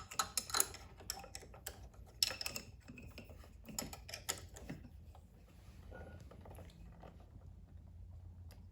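Small metal hand tools clicking and tapping on a small engine's valve-lash adjuster as it is loosened slightly: a run of sharp ticks, busiest in the first few seconds, then only an occasional click.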